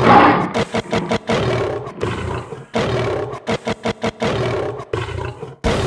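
A lion roar sound effect, loud at the start, then cut into short stuttering chops that repeat in a steady rhythm, like an edited intro to a song.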